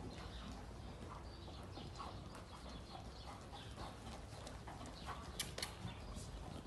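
Pony cantering on the soft sand footing of an indoor riding arena: repeated muffled hoofbeats, with two sharper clicks about five and a half seconds in.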